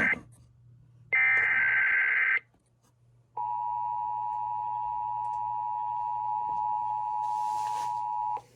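Emergency Alert System SAME header data bursts, the last of which runs about a second, a fast warbling digital screech. After a second's pause the EAS two-tone attention signal sounds steadily for about five seconds and cuts off abruptly, marking the start of an Amber Alert activation.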